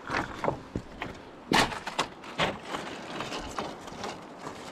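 Footsteps on loose boulders: shoes scuffing and knocking on rock in an irregular series of knocks, the loudest about a second and a half in.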